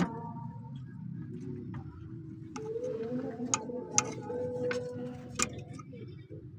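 Sharp metallic clicks and taps of hand tools on the car's clutch cable fittings, a few irregular strikes, over a steady low hum.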